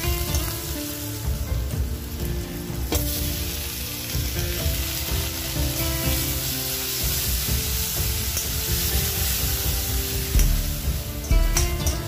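Sliced onions, then chopped tomatoes, sizzling in hot oil in a stainless steel kadai while a metal spatula stirs them and scrapes the pan. A few sharper knocks of the spatula on the pan come near the end.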